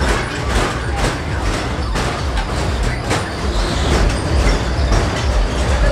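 Fairground kiddie ride running: a steady mechanical rumble with clacks about once a second.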